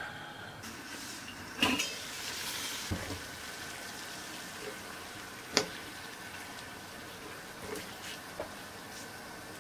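Water at a rolling boil in a stainless steel pot, a steady bubbling hiss, with a few clinks and knocks of the metal lid and pan as whole courgettes are lowered in; the sharpest knock comes a little past halfway.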